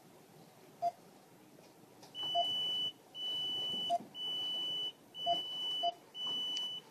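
Respiration monitor's apnea alarm sounding: five long, steady high-pitched beeps, starting about two seconds in, as the time since the anesthetized dog's last detected breath runs past the set limit. A few short, lower blips from the monitoring equipment come in between.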